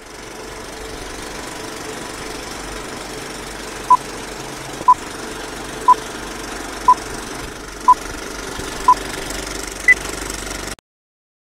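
Old-film countdown leader sound effect: a steady film-projector whir and crackle, with a short beep once a second, six at one pitch and then a final, higher beep. The sound cuts off abruptly about a second later.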